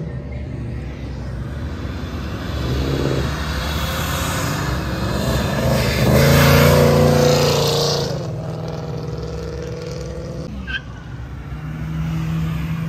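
Car engine accelerating hard as the car passes by, rising in pitch and growing loud, loudest about six to seven seconds in, then fading off. A quieter steady engine hum follows near the end.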